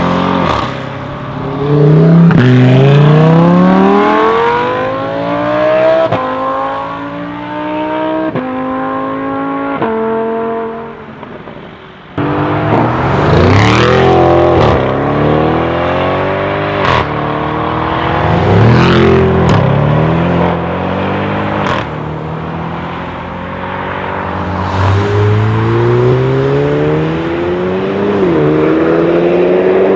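Tuned Audi RS6 C7 twin-turbo V8s with aftermarket exhausts accelerating hard, the engine note rising and dropping back at each upshift. A cut about twelve seconds in switches to a second car, whose exhaust gives sharp pops and cracks between shifts.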